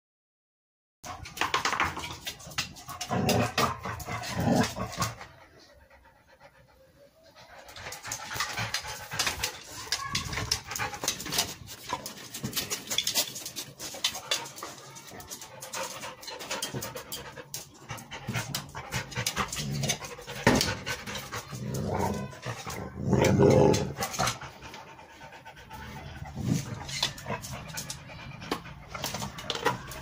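Cane Corso dog panting, with scattered clicks and knocks throughout and a brief lull a few seconds in.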